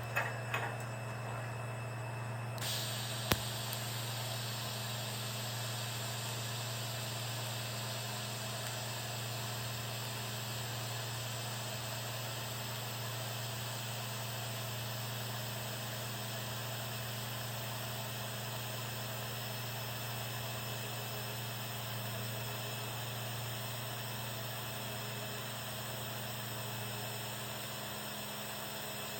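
TIG welding arc from an EWM Tetrix 230 AC/DC set to 72 A, burning on 8 mm sheet with a steady hiss and buzz over a constant low hum. The hiss comes in about two and a half seconds in, with a sharp click just after.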